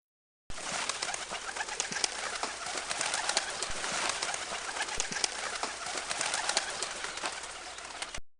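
A flock of pigeons cooing, a dense continuous chorus that starts about half a second in and cuts off suddenly near the end.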